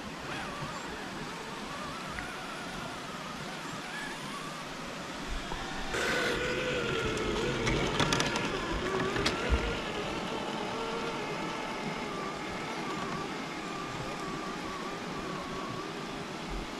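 Electric motor and drivetrain of an RC rock crawler whining, the pitch wandering up and down with the throttle. It gets louder about six seconds in, with a few sharp clicks and knocks soon after.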